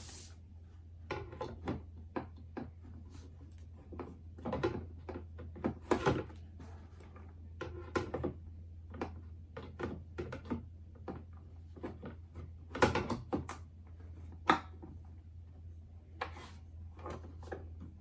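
Irregular clicks, knocks and short rustles of parts and packaging being handled during a monitor unboxing, over a steady low hum.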